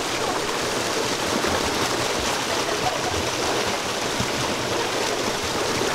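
Canyon stream water rushing steadily.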